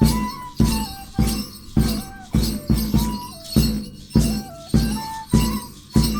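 Peruvian folk harp music: a steady beat of deep low thumps, nearly two a second, under jingling bells, with a melody line that slides between notes.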